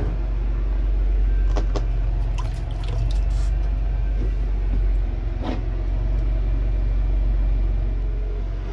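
Steady low engine hum inside the cab of a Snobear tracked ice-fishing vehicle, with a few light clicks and rattles.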